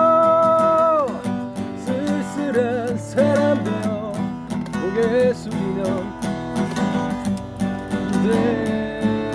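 Acoustic guitar strummed under a singing voice: a long held note that falls away about a second in, then shorter wavering phrases over the guitar.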